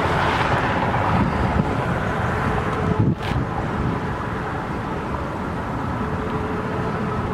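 Gusty wind buffeting the microphone with a steady low rumble, mixed with the tyre noise of cars passing on the highway. A brief sharp hiss about three seconds in.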